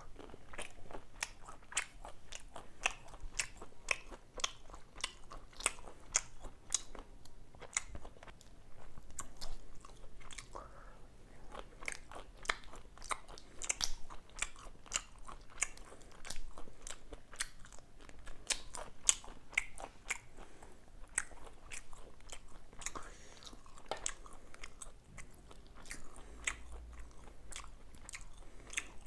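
Close-miked eating of prawns: chewing and biting, a steady run of sharp wet clicks and crunches several times a second.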